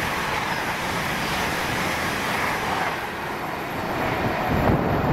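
Passenger train coaches rushing past close at speed, a steady rush of wheels on rail and moving air. The last coach clears about three seconds in and the rush dies away into wind noise on the microphone.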